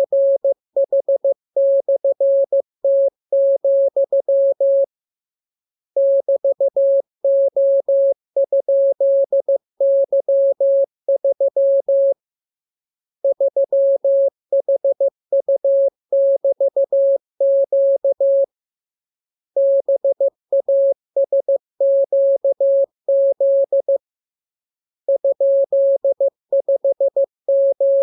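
Morse code (CW) practice signal: a single steady tone keyed on and off in dots and dashes at an even pace. Short pauses of about a second come roughly every six seconds between runs of characters.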